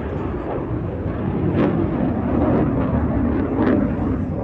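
Fighter jet's engines heard from the ground during a flying display: a loud, rumbling jet noise that swells in the middle, with a couple of sharp crackles, and eases near the end.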